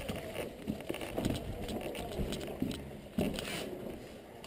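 Footsteps crunching and scuffing on gravel and broken brick rubble, with the rustle of clothing and gear, and a louder scrape about three seconds in.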